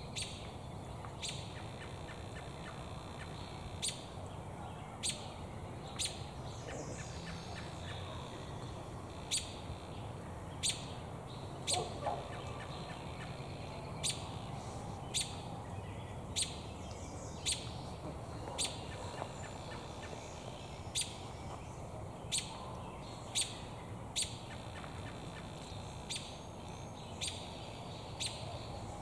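American robin giving short, sharp chirp calls, about one a second at an uneven pace.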